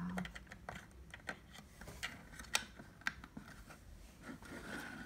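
Small, irregular plastic clicks and taps from a pink plastic toy pet-hotel cabinet being handled by fingers at its little front compartments, with a handful of sharper clicks among fainter ones.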